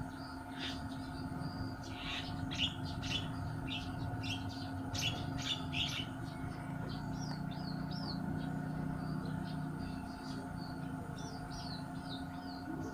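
Birds chirping, a steady run of short chirps and quick swooping whistles, over a constant low mechanical hum.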